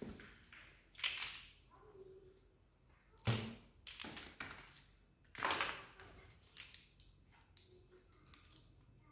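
Thin plastic yogurt bags crinkling in short bursts as they are handled and tied, with a dull knock about three seconds in.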